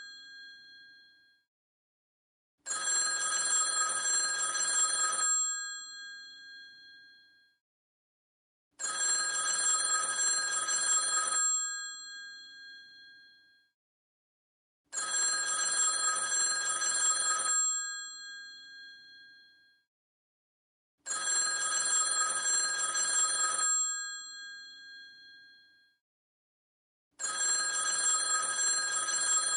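Old rotary telephone's bell ringing in a repeating cadence: five rings about six seconds apart, each a rapid clatter of about two and a half seconds whose tones ring on and fade after it stops.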